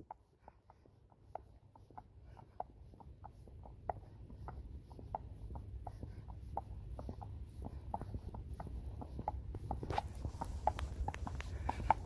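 A Friesian horse's hooves clip-clopping on an asphalt path at a walk, an even beat of about three hoof strikes a second, growing louder.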